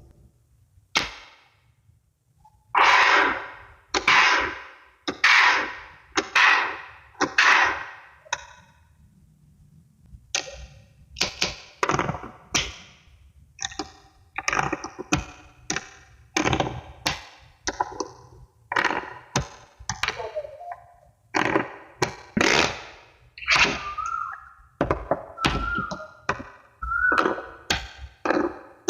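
Small magnetic balls snapping onto one another: a series of sharp clicks, each with a brief ringing tail, about one a second at first and coming quicker from about a third of the way in.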